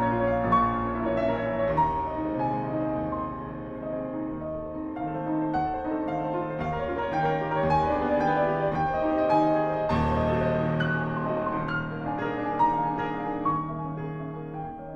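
Instrumental background music led by piano, with a low note repeating at an even pulse.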